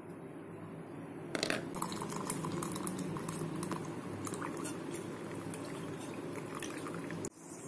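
Custard milk poured into a steel mixer jar of mango puree: a steady splashing pour that starts about a second and a half in and cuts off near the end.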